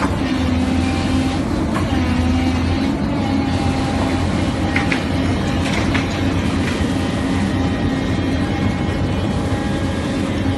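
Hyundai hydraulic excavator's diesel engine and hydraulics running steadily as the boom moves the shear attachment, with a few faint clicks.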